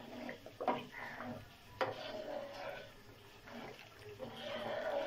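Metal ladle stirring boiling chicken corn soup in an aluminium pot, the liquid swishing, with a few sharp knocks of the ladle against the pot in the first couple of seconds. The cornflour slurry is being stirred in to thicken the soup.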